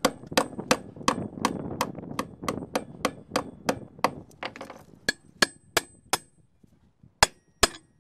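A hammer strikes steel bolts, driving them into drilled holes in a log's end grain: a steady run of metallic taps about three a second, a pause about six seconds in, then two harder blows near the end.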